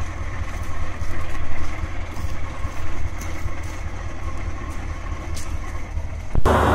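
Truck diesel engine idling steadily with a low rumble. Near the end it cuts abruptly to a louder rushing noise.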